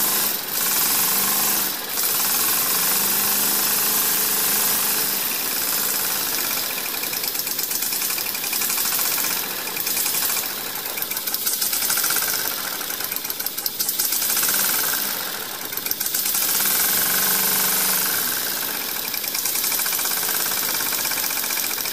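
Homemade small piston steam engine running fast: a rapid, even chuffing over a loud, constant hiss of exhausting and leaking steam. The sound swells and eases a few times as the steam is throttled with a ball valve.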